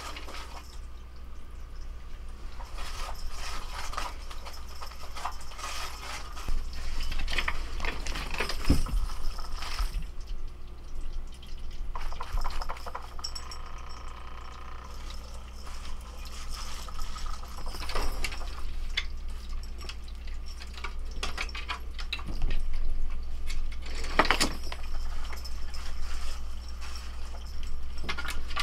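A tabby cat climbing about a wooden shelf unit: scattered light clicks, taps and scrabbles of claws and paws on the wood, over a steady low hum.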